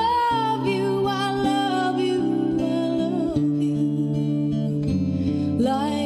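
Slow, gentle song with a singing voice over sustained instrumental accompaniment, played back as dance music.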